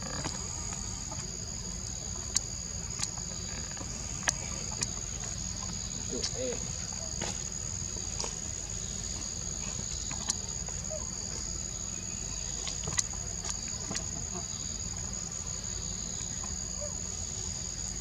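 Steady, high-pitched drone of forest insects, crickets or cicadas, holding two even tones throughout. A few sharp clicks stand out over it.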